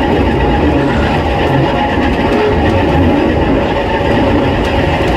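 Höllentalbahn electric narrow-gauge railcar running along the track, heard from its cab: a steady rumble of wheels and running gear.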